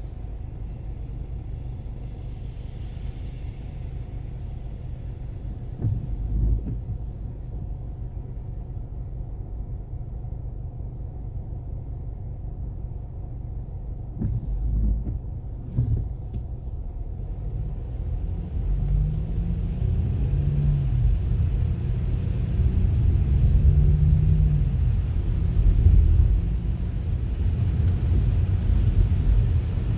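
Car driving on a snowy road: a steady low rumble of engine and tyres, with a few dull thumps. About eighteen seconds in it grows louder, and the engine pitch rises and falls as the car picks up speed.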